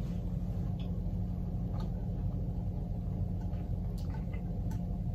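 A steady low hum, with a few faint clicks of eating: chewing and chopsticks touching the plate and rice.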